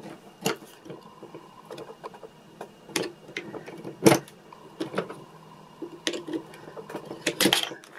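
Scattered clicks and taps of metal tools on the small plastic gear and motor shaft of a toy gearbox as the gear is worked off the shaft, the loudest about four seconds in.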